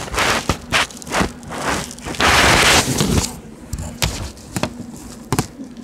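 Phone being handled right against its microphone: a string of sharp knocks and rubbing rustles, with a loud hiss lasting about a second a little over two seconds in.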